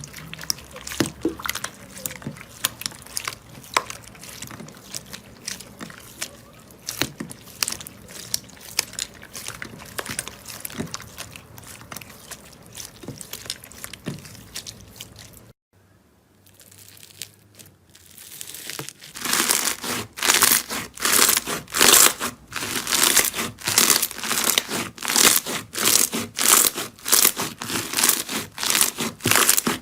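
Slime being worked by hand, giving many small crackling clicks. After a brief silent break about halfway through, a louder bout of rhythmic crackling presses follows, about two a second.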